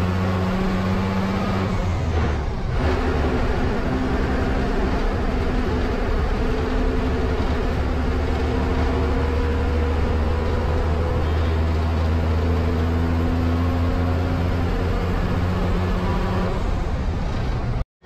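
An MSRTC bus's engine runs steadily at road speed, heard from the driver's cab over tyre and road noise. The engine note dips and changes pitch about two seconds in, then holds steady again. The sound cuts out for a moment near the end.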